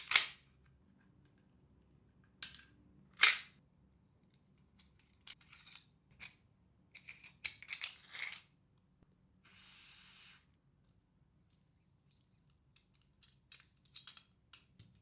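Gas blowback M1911 airsoft pistol being handled and worked during maintenance: sharp metallic snaps right at the start and about three seconds in, then a run of small clicks and rattles of metal parts, with a short hiss a little past the middle.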